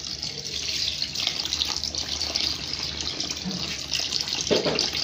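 A steady stream of water poured onto shredded editan leaves in a plastic colander, splashing and draining through as the leaves are rinsed. There is a short louder moment near the end.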